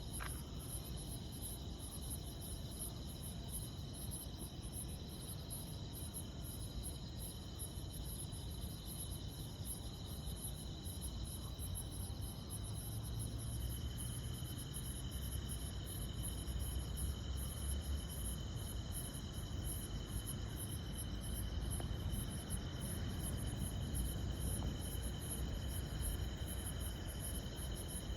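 Crickets chirping steadily, a rapid high-pitched pulsing with a few steady high trills beneath it, over a low continuous rumble.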